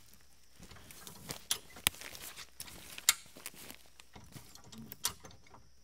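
High-lift farm jack being pumped to raise the front of an old Jeep: sharp metal clacks from the jack's climbing mechanism on its perforated steel bar, one every second or two, with smaller clicks in between.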